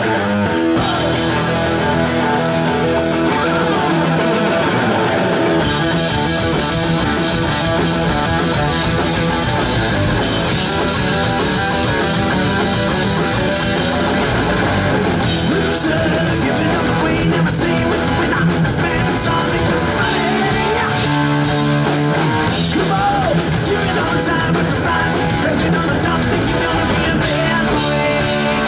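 A live heavy metal band playing loud: distorted electric guitars, bass and drum kit over the PA, with vocals at times.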